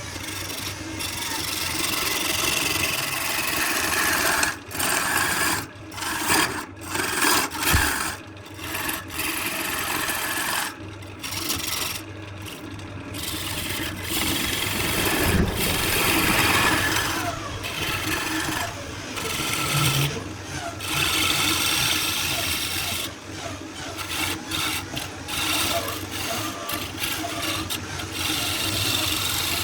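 Wood being worked with an abrasive tool: a scratchy rasping sound in repeated strokes that stops and starts with brief gaps.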